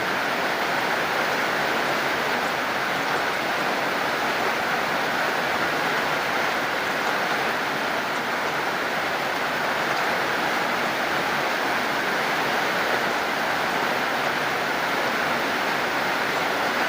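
Heavy rain falling, a steady even hiss of water with no drops or thunder standing out.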